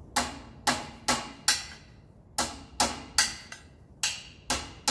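Hammer striking a nail into wood: about a dozen sharp, evenly paced blows, roughly two a second, in runs of four with a short pause after the first run.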